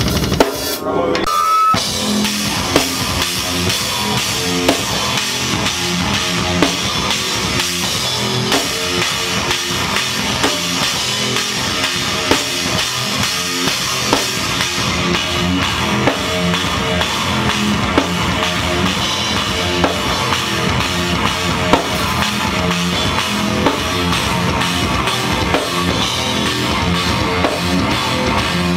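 A metal band rehearsing live: a drum kit with a pounding bass drum, snare and crashing cymbals, under electric guitars. Everything stops for a moment about a second and a half in, then the band plays on without a break.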